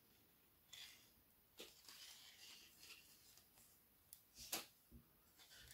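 Near silence with faint handling sounds of hand knitting: soft rustles of wool yarn and a light click of the metal knitting needles about four and a half seconds in.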